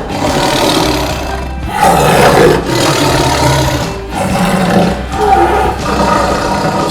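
A tiger roaring, several roars one after another, over background music.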